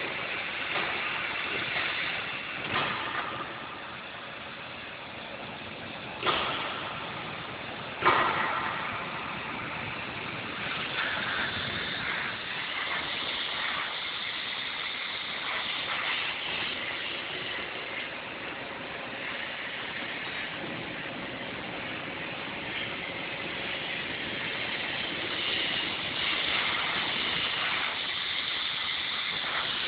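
CNC gantry V-groover machine running steadily through sheet-metal grooving work, with two sharp knocks about six and eight seconds in.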